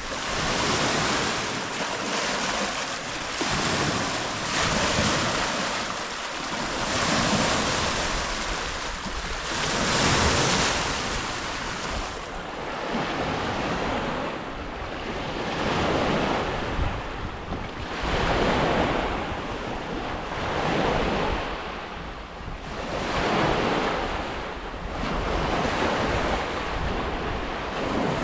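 Lake waves breaking and washing on the shore, a new wave swelling and falling away every two to three seconds, with a low rumble of wind underneath.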